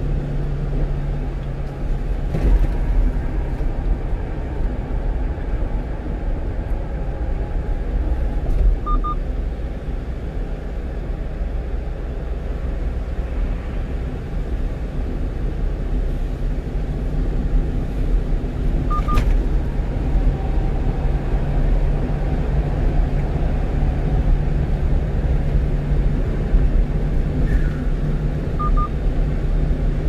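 Steady road and engine drone heard inside the cab of a 1-ton truck cruising on an expressway. A faint short double beep sounds about every ten seconds.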